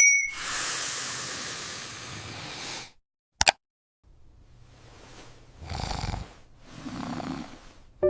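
Cartoon sleep sound effects: a short high alert chime at the start, then a long hiss of breath for about three seconds, a click, and after a pause two heavy snores near the end.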